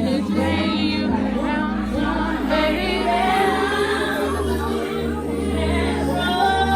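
Music with singing over sustained bass notes, played loud, with some voices underneath.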